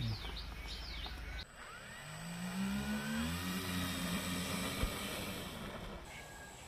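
Twin brushless electric motors and propellers of a foam RC model airliner whirring, rising in pitch about two seconds in and then holding steady.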